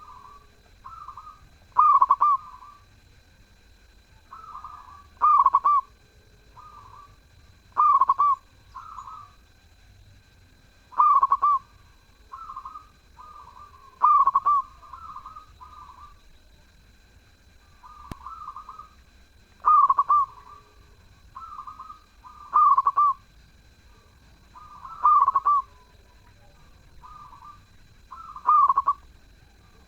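Zebra dove (perkutut) singing repeatedly: phrases of soft rolling notes, each ending in a loud coo, about once every three seconds.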